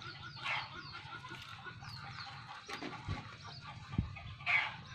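Birds chirping in a run of short, high, falling notes, with two louder harsher calls about half a second in and near the end, and a dull thump near four seconds.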